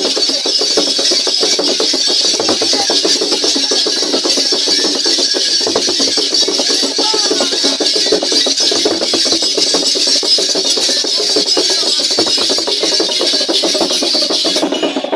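Dense, continuous rattling and clattering of traditional dance rattles, loud and without let-up.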